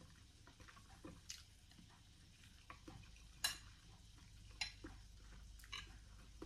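Metal spoon clinking against a ceramic dinner plate while eating: four light clinks about a second apart, the loudest a little past halfway, over quiet room tone.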